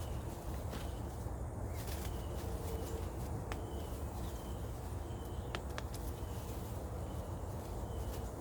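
Hands digging sweet potatoes out of soil and wood chips: rustling with scattered sharp clicks and snaps. A short high chirp repeats about once a second in the background.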